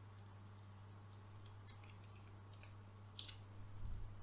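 Faint scattered clicks of a computer mouse and keyboard, with a sharper click about three seconds in, over a low steady electrical hum.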